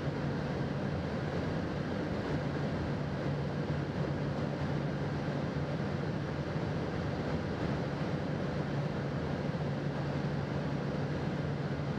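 Aircraft engine running steadily in flight: a constant low drone with an even hiss over it.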